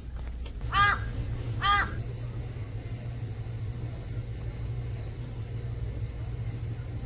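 A crow cawing twice in quick succession, about a second apart, over a steady low rumble.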